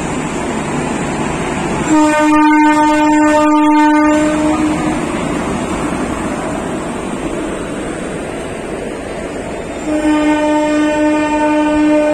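WAP-4 electric locomotive hauling an express train past: the steady rumble of the rolling train, with two blasts of the locomotive's single-tone air horn. The first lasts about two seconds, starting about two seconds in; the second starts near the end and is still sounding.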